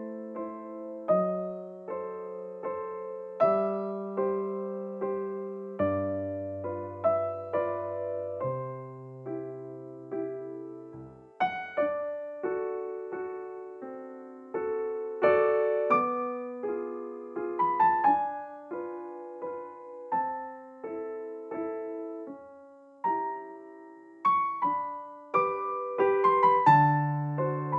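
Background music: a gentle piano piece, notes struck one after another and chords fading away.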